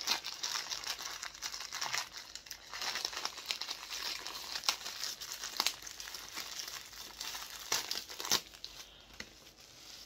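Plastic wrapping crinkling in the hands as a small vinyl figure is unwrapped, a dense irregular crackle with a few sharper crackles in the second half.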